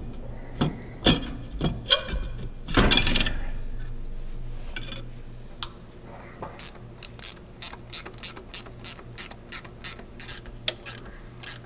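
Hand ratchet wrench clicking in quick short strokes, about three clicks a second, as a bolt is turned on the tractor's engine bracket. A few metal knocks and a scrape come first.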